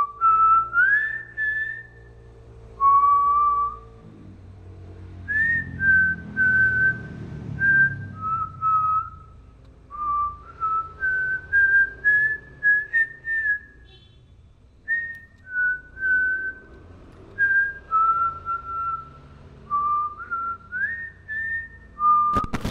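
A long string of clear whistled notes, each held briefly at a steady pitch, with quick upward slides between some of them.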